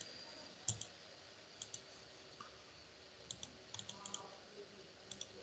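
Faint computer mouse clicks, about six of them spread through, each a quick pair of clicks.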